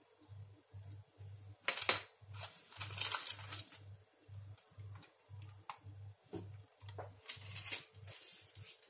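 Dishes and utensils clinking and clattering as they are handled, in several short bursts over a soft, steady low pulsing beat.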